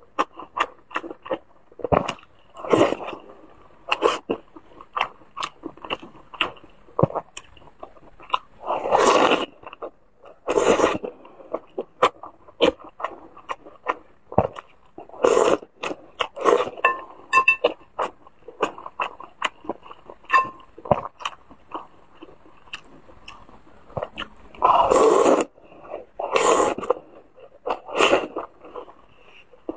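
Close-miked mukbang eating of wontons and noodles in chili-oil broth: wet chewing and mouth clicks throughout, broken by several louder slurps lasting up to about a second.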